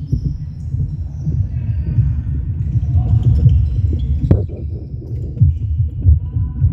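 Court noise of a netball game in a large sports hall. A steady low rumble carries many soft thuds of players running on the wooden floor and the ball being played, and one sharp knock comes about four seconds in.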